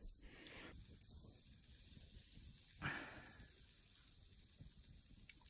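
Near silence: faint background hiss, with one brief soft rush of noise about three seconds in.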